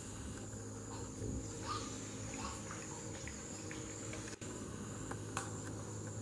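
Steady high-pitched insect drone, with a few faint short sounds and a sharp click about five seconds in.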